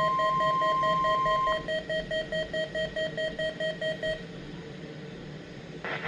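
NOAA Weather Radio 1050 Hz warning alarm tone, a steady single tone that cuts off about one and a half seconds in. Over it, a weather radio receiver's alert beeps about three times a second and stops about four seconds in, leaving faint hiss. A louder hiss starts near the end.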